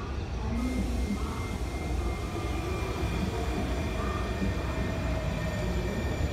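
WMATA 6000-series Metro train passing close by: a steady rumble of wheels on rail, with a thin high whine that comes in about half a second in and holds.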